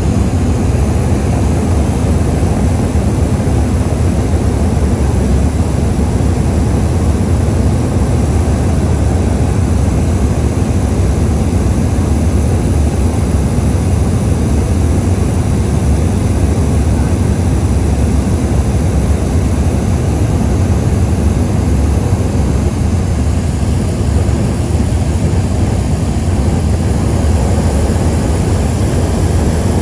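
Deep, steady drone of a high-wing light aircraft's engine and propeller in cruise, heard from inside the cabin.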